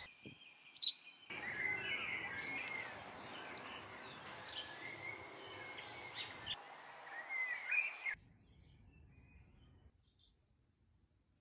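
Birds chirping and calling over outdoor background noise, the background changing abruptly where short clips are cut together. About eight seconds in it drops to a much quieter scene with only a few faint calls.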